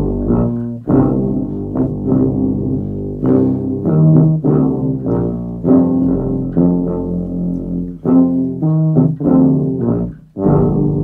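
Several overdubbed tuba parts played together in a multitrack arrangement of a pop song. Short, rhythmic tuba notes run over a sustained low bass line, with a brief break near the end.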